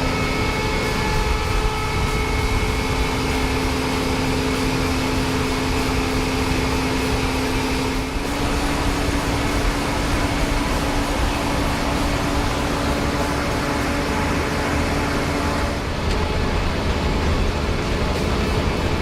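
Potato harvester and tractor engines running steadily, with a steady mechanical whine over the engine noise. The pitch of the whine shifts up about 8 seconds in and changes again near 16 seconds.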